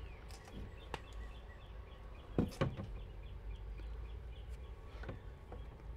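A few light knocks and clicks as a metal automatic greenhouse vent opener is handled and held against a wooden wall frame, the loudest a quick pair about two and a half seconds in. A small bird chirps faintly and rapidly in the background.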